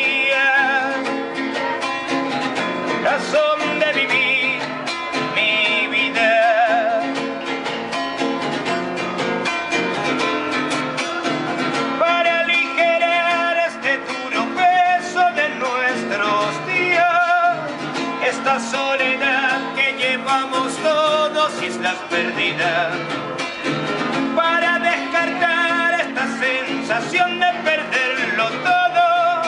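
A man singing with vibrato to his own acoustic guitar, playing steadily.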